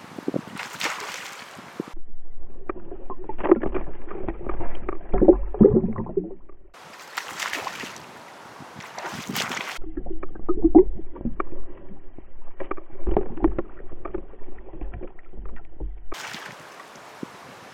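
Alternating river sounds: an open-air hiss of flowing water and wind, broken by stretches of muffled underwater sound heard through a camera housing, a low rumble with irregular clicks and gurgles. The underwater stretches begin about two seconds in and again about ten seconds in, each lasting several seconds.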